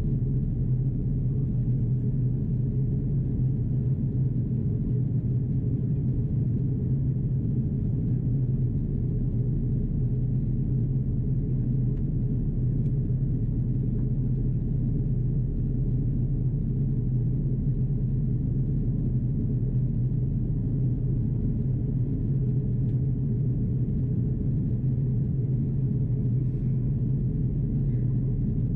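Steady low cabin rumble of an Airbus A330-343 in descent: engine and airflow noise heard from a rear window seat, even and unbroken.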